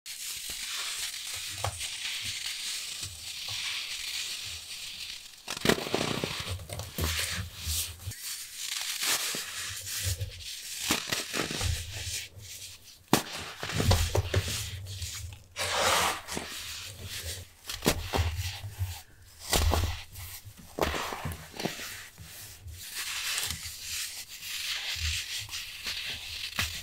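Reformed baking soda cups crushed and crumbled between bare hands: irregular dry, sandy crunching and crackling as the pressed powder breaks apart, with dull thumps of handling.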